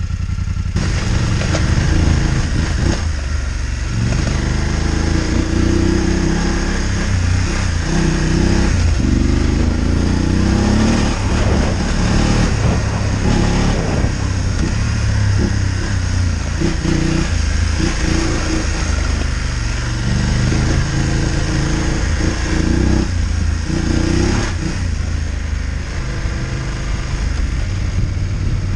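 Adventure motorcycle engine running under load on a loose gravel track, its note changing again and again as the throttle opens and closes, with a steady hiss of wind and road noise over it.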